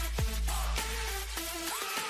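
Background electronic dance music with a heavy bass line and a drum hit that falls in pitch; the bass drops out near the end.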